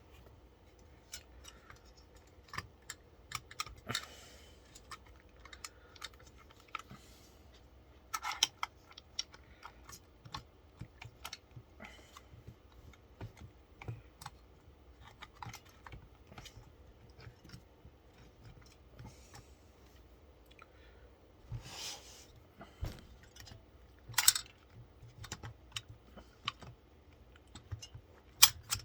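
Irregular small clicks, taps and rattles of plastic and metal parts as a stock AMD CPU cooler is handled and set in place over the processor, with a few louder clacks along the way.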